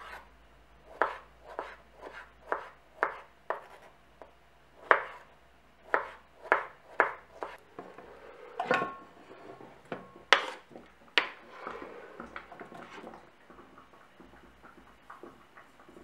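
Kitchen knife slicing strawberries on a wooden cutting board: a run of crisp taps, about two a second, as the blade meets the board. About halfway, the cut strawberries are scraped off the board into a pot, with a sliding scrape and then two sharp knocks.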